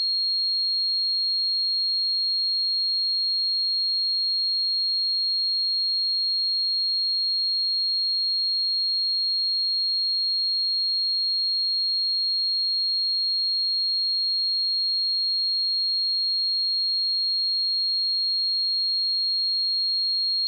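A steady, unbroken 4262 Hz sine-wave test tone: a single high pure pitch held at constant level.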